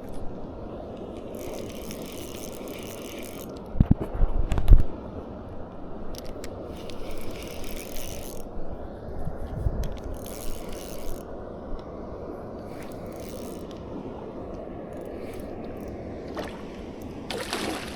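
Spinning fishing reel being cranked in short spells of several seconds, its gears and line roller whirring. A few loud knocks come about four seconds in.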